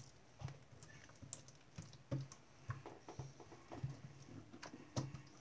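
Homemade PVA-glue-and-borax slime being kneaded, stretched and pressed against a table by hand, making quiet irregular sticky clicks and soft pats.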